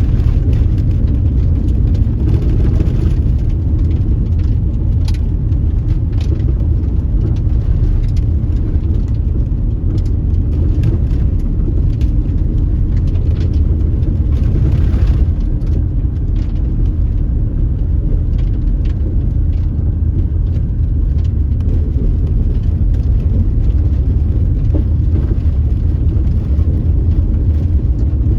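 Car driving at steady speed: a constant low rumble of road and engine noise, with scattered faint ticks.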